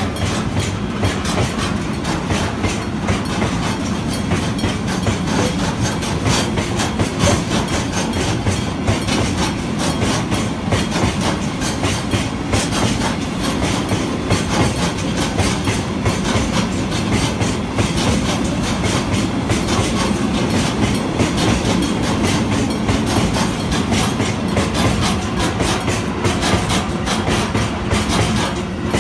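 HD300 hybrid locomotive and ND60 locomotive passing close by: steady loud running with the clatter of wheels over rail joints and the growl of nose-suspended traction motors.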